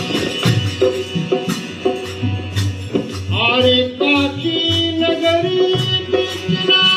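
Live bhajan music: a harmonium sounding sustained chords over a dholak beating a steady rhythm, with a man's voice singing a line about halfway through.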